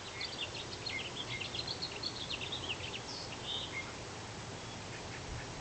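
Small birds chirping: a quick run of short, high chirps over a steady outdoor background hiss, busiest in the first couple of seconds and thinning out after.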